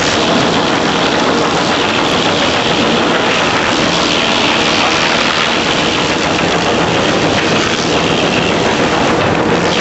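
Stringer Industries 70-inch wastewood chipper running, a loud, steady mechanical din with a low hum under it, a little brighter and hissier in the middle.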